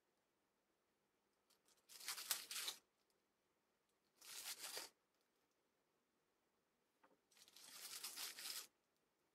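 Small clear plastic accessory bags crinkling as they are handled, in three short bursts: about two seconds in, near the middle, and a longer one near the end.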